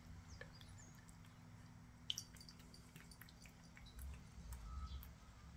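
Faint soft clicks and smacks of a cat eating wet food from a plastic slow-feeder bowl, with one sharper click about two seconds in, over a low steady hum.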